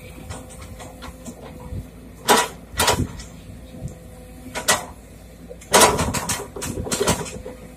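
Sumitomo SH210 excavator's diesel engine running steadily while its bucket dumps earth fill into a steel dump-truck bed. Sharp knocks sound three times, and near the end comes a longer burst of clatter.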